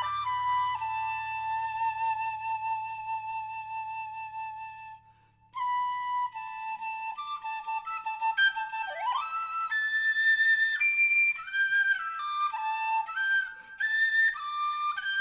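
Background music: a solo flute playing a slow melody of long held notes, breaking off briefly about five seconds in, then moving through shorter notes with an upward slide.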